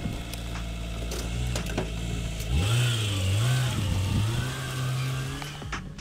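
Mitsubishi Pajero Mini kei car idling, then pulling away about two and a half seconds in, its engine note rising and wavering as it accelerates off. The sound fades near the end.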